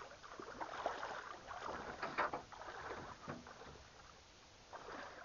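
Soft, irregular splashing and rustling of water at the edge of a flooded stand of trees, with a louder splash about two seconds in.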